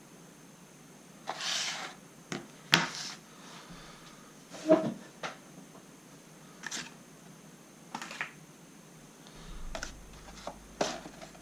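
Handling noise: irregular clicks, light knocks and brief rustles of small objects being picked up and moved about, the sharpest knocks about three and five seconds in.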